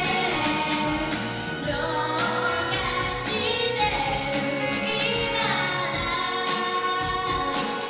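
Female voices singing a pop song live over instrumental accompaniment, with one held note wavering near the middle.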